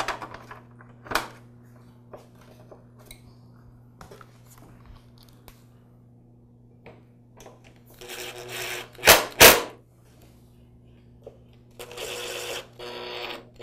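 Cordless power screwdriver driving screws into the plastic top cover of an espresso machine, in two short runs about eight and twelve seconds in, with two sharp clicks just after the first run. A single plastic click about a second in as the cover is seated.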